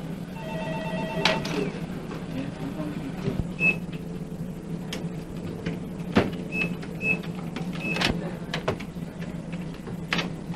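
Office room tone: a steady low hum under faint voices, with scattered clicks and knocks, a short pulsed electronic trill about a second in, and a few brief high beeps later on.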